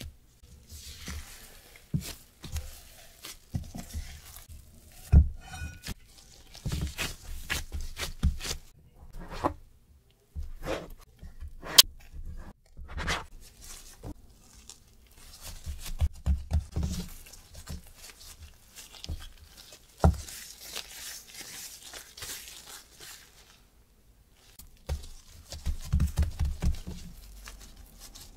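Gloved hands working sticky whole wheat bread dough: irregular wet tearing and squishing as it is pulled apart and divided. A few sharp taps of a plastic bench scraper on the cutting board come through the handling.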